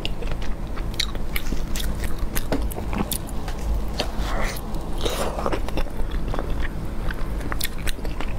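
Close-miked biting and chewing of glazed fried fish: a string of sharp clicks and smacks from the mouth, over a steady low hum.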